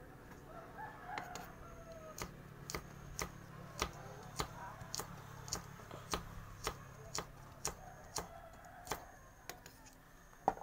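Kitchen knife chopping green peppers on a wooden chopping board: sharp, evenly paced knocks about two a second, beginning about two seconds in, with one last knock near the end.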